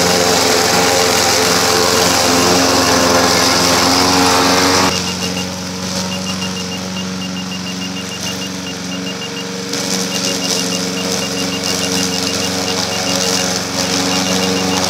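Petrol engine of a self-propelled, radio-controlled rotary lawnmower running steadily as it mows through tall grass. About five seconds in, the engine drops suddenly to a quieter, duller note.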